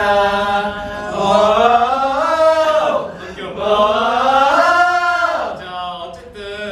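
Male voices singing together in two long, drawn-out phrases, the second fading out about five and a half seconds in.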